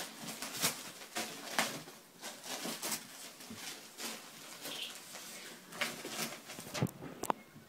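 Wrapping paper crackling and tearing in a string of short rustles as a small dog pulls at a wrapped present with its mouth.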